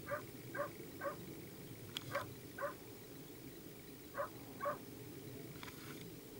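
Short animal calls, seven brief yelps of even pitch in groups of three, two and two, about half a second apart within each group, over a steady low rumble.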